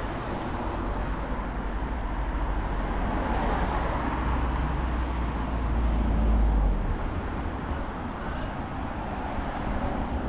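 A motor vehicle passing on the village road, a steady rumble and tyre noise that builds towards the middle and then eases off. A few faint high chirps come in about two-thirds of the way through.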